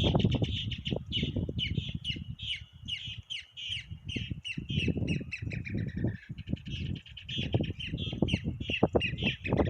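Songbird calling with a fast run of short, repeated chirps, about four to five a second, over a low rumble.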